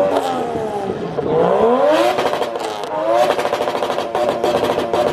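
Car engine being free-revved hard while stationary: a few quick rising and falling revs, then held high from about three seconds in with a fast popping crackle.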